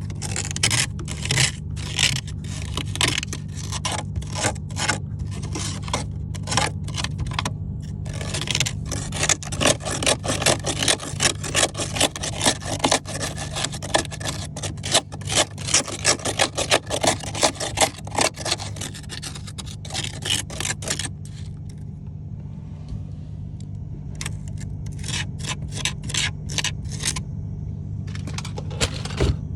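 Frost being scraped out of a mini fridge's freezer compartment: rapid, repeated scraping strokes, coming thickest in the middle, then thinning out with pauses near the end. A steady low hum runs underneath.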